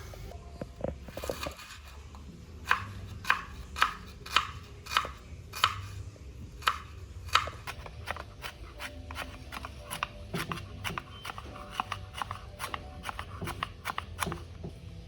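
Kitchen knife chopping on a cutting board: a run of firm, evenly spaced strokes at about two a second, then a longer stretch of lighter, quicker cuts.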